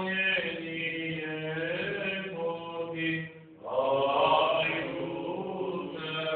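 Men chanting Orthodox church chant in long held notes over a steady low note, with a short break about three and a half seconds in before the chant resumes.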